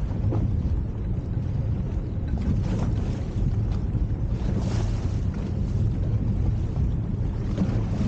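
Fairline Targa 38 motor cruiser under way: a steady low engine rumble, with wind buffeting the microphone and the hiss of water along the hull swelling a few times.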